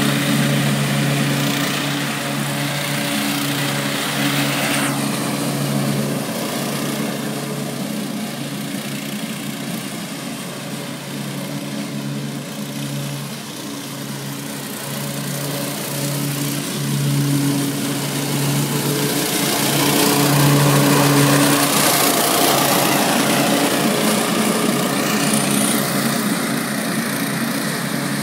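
Exmark Metro 48 walk-behind commercial mower's engine running steadily under load while cutting grass. It fades as the mower moves to the far side of the yard about halfway through, then grows louder as it comes back.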